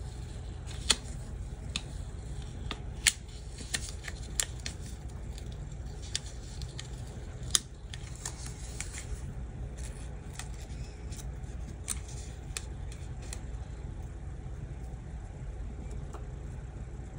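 Small sharp clicks and crackles of a paper sticker being peeled off its sheet and pressed onto a planner page, frequent in the first half and sparse after that, over a steady low hum.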